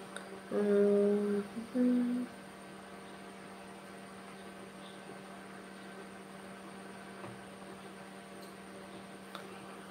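Steady low electrical mains hum in the room. About half a second in comes a short two-note hum, the second note slightly higher, that stops after a couple of seconds.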